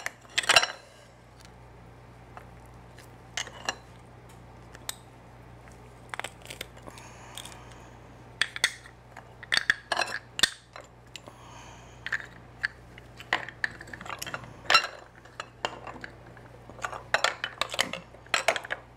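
Cooked quahog shells clacking and knocking against each other and the bowl as they are snapped apart at the hinge, in irregular hard clicks with brief scrapes between. A faint steady hum runs underneath.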